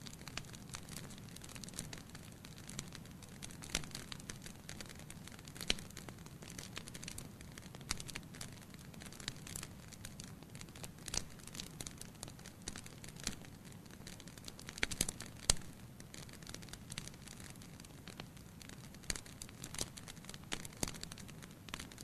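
Wood logs burning in a fireplace, crackling with irregular sharp pops over a soft steady low rumble. A cluster of louder pops comes about fifteen seconds in.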